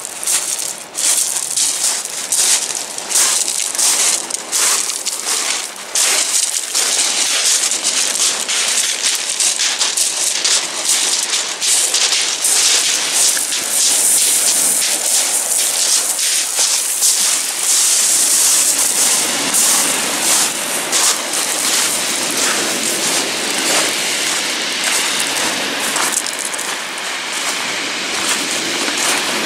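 Surf breaking and washing back over a shingle beach: a steady hiss full of small crackles from the rolling pebbles.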